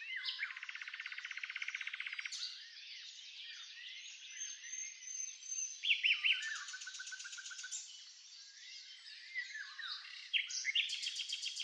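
Oriental magpie-robin (kacer) singing a long, varied song. It opens with a fast rattling trill of rapidly repeated notes lasting about two seconds, goes on with whistled and slurred phrases and more quick repeated-note runs, and breaks into another fast trill near the end.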